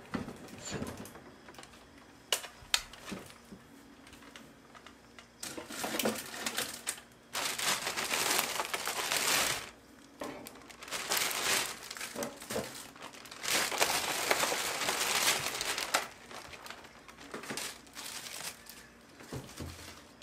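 Plastic packaging crinkling and rustling as it is handled, in irregular bursts, with a few sharp clicks and taps.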